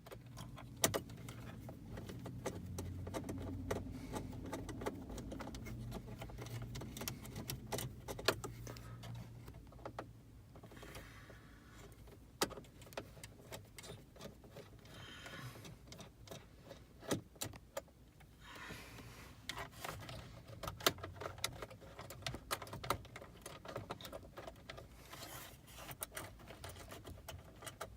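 Phillips screwdriver backing out two small screws from a car's plastic dash trim, with scattered light clicks and small metallic rattles of the screws and tool being handled. A low hum sits under the first several seconds.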